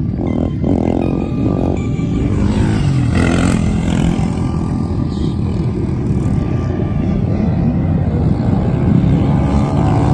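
Several sport quad ATV engines run hard and rev at high throttle, their pitch rising and falling as the riders accelerate and ease off.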